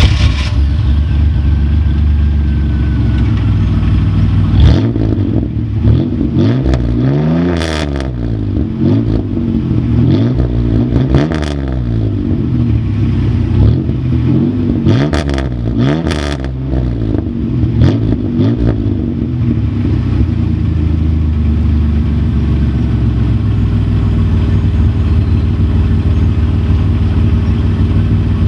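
A 1997 Chevrolet Camaro's 3.8L Series II V6, running through a Cherry Bomb performance muffler, idles, is revved up and back down several times in quick succession, then settles back to a steady idle.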